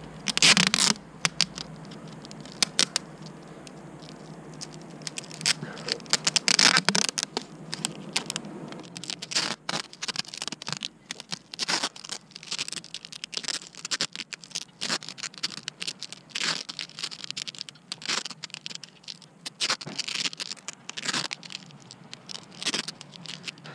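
Wide adhesive tape being pulled off its roll, with a long rasping pull about half a second in and another around six seconds in, then many short tugs and crackles as it is wrapped onto a loose tubeless mountain bike tyre to build it up so the bead can seat.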